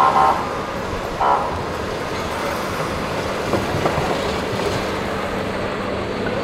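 Busy city street traffic: a steady hum of engines and tyres, with two short vehicle horn toots, one at the start and one about a second in.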